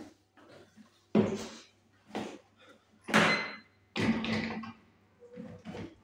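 A man getting on and working a stationary exercise bike: a run of loud, rough bursts of noise, about one a second, five in all.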